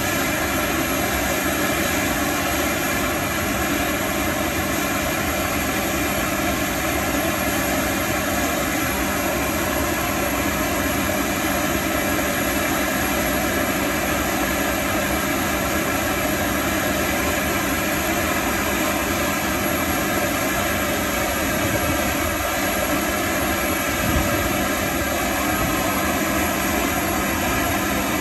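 Boeing 757's auxiliary power unit, the small gas turbine in the tail cone, running steadily at speed after its start: a constant, even sound made of several steady tones over a rumble.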